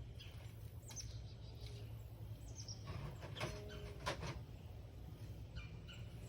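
Birds chirping in short, falling calls, with two sharp metallic clinks with a brief ring in the middle, over a low steady hum.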